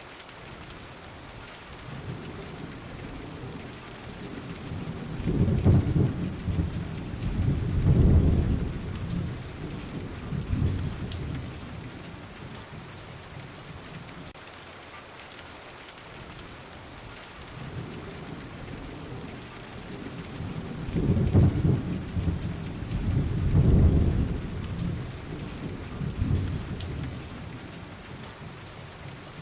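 Steady rain falling, with thunder rolling twice: a pair of low rumbles about five seconds in and a matching pair about twenty-one seconds in.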